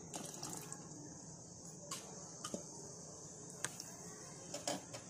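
Tomato and dried-chilli purée simmering in an aluminium pot: a few faint pops of bursting bubbles over a steady high hiss.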